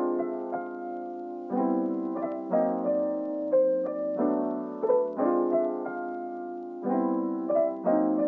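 Background music: a soft piano playing repeated chords about once a second, with a simple melody on top.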